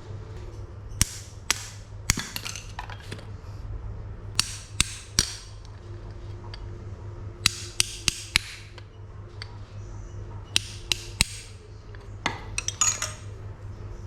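Hammer striking metal in short runs of two to four sharp blows, about three a second, each with a brief metallic ring, over a steady low hum. The work is driving a bike frame's linkage bearings out of or into their seats.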